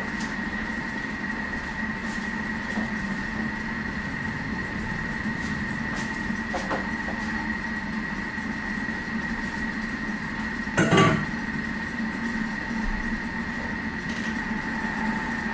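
Thermomix TM6 food processor running at low speed on reverse, its motor humming steadily as it stirs and steams vegetables. A single knock sounds about eleven seconds in.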